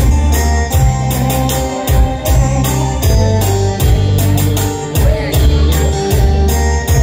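Backing track of a Vietnamese song playing an instrumental passage: a steady drum beat with a regular bass pulse, quick ticking percussion on top, and sustained keyboard melody notes.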